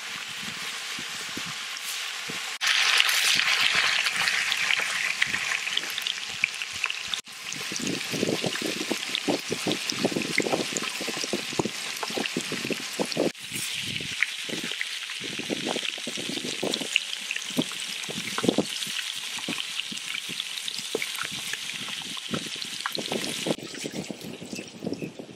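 Marinated chicken pieces sizzling and crackling as they fry in oil and butter in a large metal pot, the sizzle changing level abruptly a few times.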